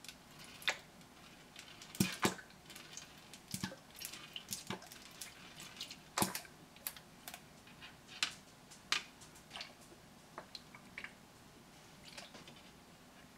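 Plastic squeeze bottles of lemon juice and vinegar squirting liquid onto a metal tray, heard as short wet sputters and drips mixed with irregular sharp clicks and taps.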